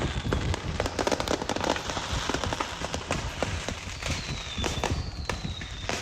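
Fireworks going off all around: a dense, continuous crackle of sharp pops and bangs.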